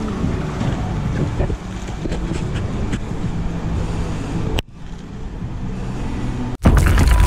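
Steady low vehicle rumble with road and wind noise, cut off abruptly twice, coming back louder after the second break.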